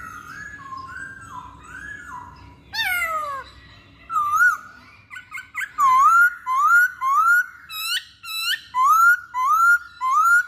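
Masked laughingthrush (poksay Hongkong) singing loud whistled notes. Softer notes open the song, then a long falling note comes near three seconds in. From about six seconds in, a run of loud rising notes repeats about every half second.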